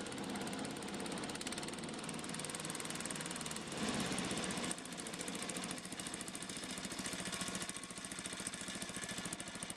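Older Exmark riding mower's engine idling nicely with a rapid, even pulse. It is briefly louder about four seconds in.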